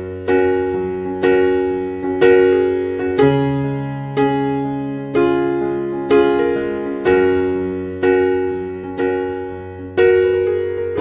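Background music: a soft electric piano playing slow chords, about one struck chord a second, each ringing and fading before the next.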